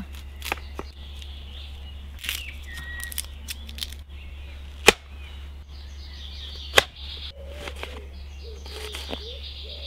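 A knife cutting a raw onion on a plastic lid used as a cutting board: scattered sharp clicks as the blade comes down, two of them louder, about five and about seven seconds in. Birds chirp in the woods behind.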